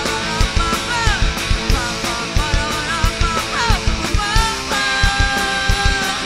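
Live rock band playing: electric guitars and bass over a steady drum beat, with a lead line that slides and bends in pitch, settling into a held note near the end.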